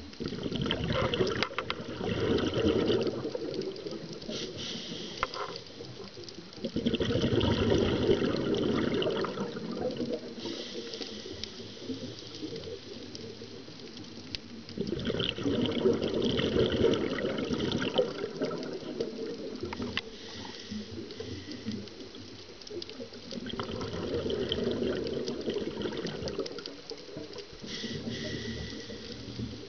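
Scuba diver breathing through a regulator underwater: four bursts of exhaled bubbles, each two to three seconds long, about every eight seconds, with quieter inhalations between.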